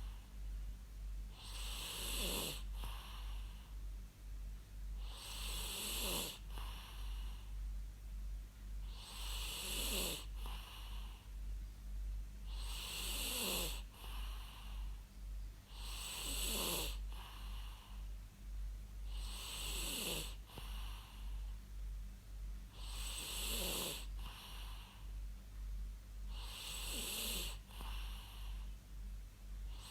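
A person snoring in a steady rhythm, about one snore every three and a half seconds, each breath breathy with a pitch that falls, over a constant low hum.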